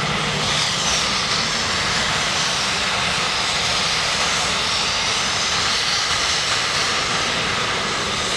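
C-17 Globemaster III's four Pratt & Whitney F117 turbofan engines running at taxi power as the transport taxis. It is a steady jet rumble with a hissing whine that swells and eases a little.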